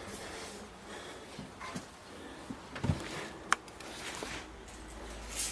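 Quiet room tone with a few faint knocks and one sharp click about three and a half seconds in.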